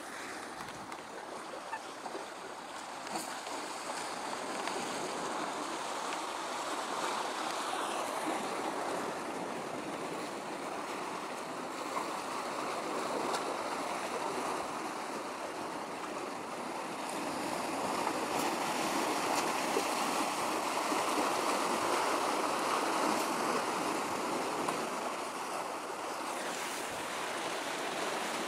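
Small waves washing in the harbour: a steady rushing that grows louder for several seconds past the middle, then eases.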